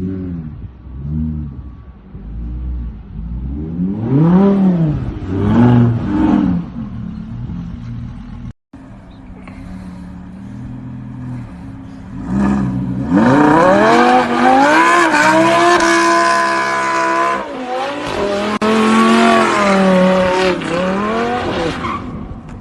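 Audi R8 engine blipped in several short revs that rise and fall. After a cut it runs low and steady, then climbs to high revs and is held there for several seconds with a loud tire screech, as in a burnout or drift.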